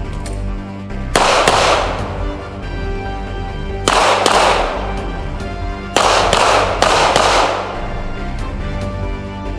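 Background music with three loud gunshots, about a second in, near four seconds and near six seconds, each followed by a long echoing tail.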